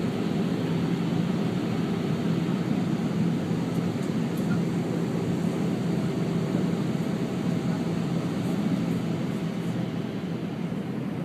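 Steady cabin noise inside an Airbus A319 in flight: the even rushing roar of engines and airflow, with a faint steady low hum.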